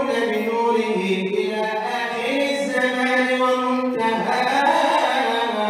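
A man chanting Arabic religious praise poetry solo into a microphone, in the Egyptian Sufi madih style. He draws out long ornamented notes that step and glide in pitch, with a short break about two-thirds of the way through.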